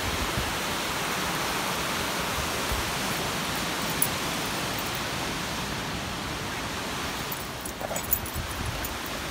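Steady rushing hiss of small waves breaking on a sandy beach, with a short sharp click about four seconds in and another near the end.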